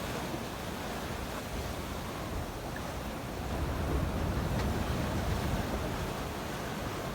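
Mediterranean surf breaking and washing on the shore, a steady rush that swells a little about halfway through, with some wind on the microphone.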